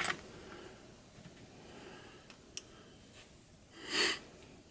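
Quiet room tone with a single faint click past the halfway point and a short breathy sniff near the end.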